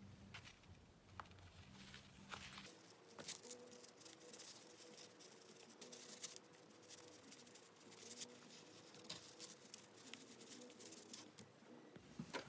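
Near silence, with faint rustles and light scattered ticks from hands handling cotton fabric and pushing straight pins through it while pinning a bias strip in place.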